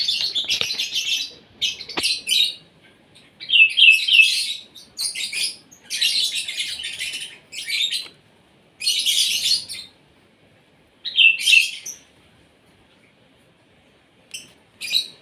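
Asian pied starling giving harsh, chattering song phrases, each about a second long with pauses between, some with short whistled notes mixed in.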